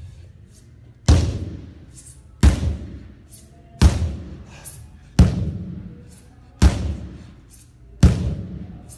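Sledgehammer striking a tire, six heavy thuds about a second and a half apart, each dying away over about a second.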